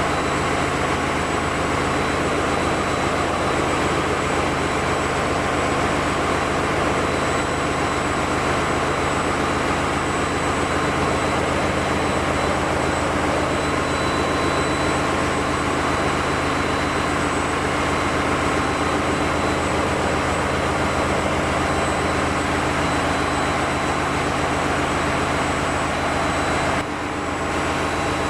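Steady, loud engine-room machinery noise from running diesel generator engines, unchanging apart from a brief drop near the end.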